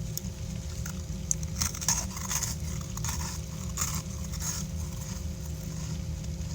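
Someone chewing soft clumps of freezer frost, with irregular soft crunches clustered from about a second and a half to four and a half seconds in. A steady low hum runs underneath.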